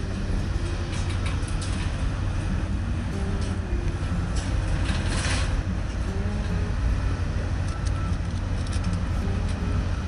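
Steady low rumble and hiss of outdoor background noise, with a short burst of hiss about five seconds in.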